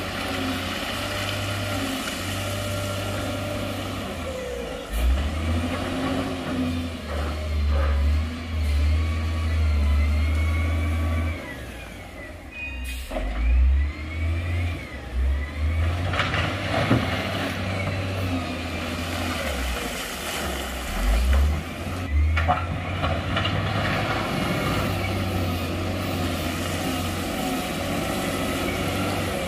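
Heavy diesel earthmoving machine's engine working under load, revving up and down repeatedly, with a brief lull about twelve seconds in.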